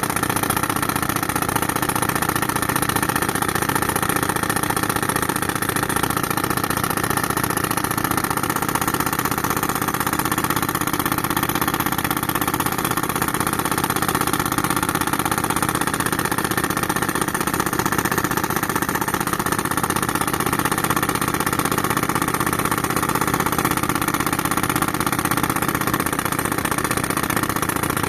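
Tractor engine running steadily, driving an air compressor, with an even, unbroken drone.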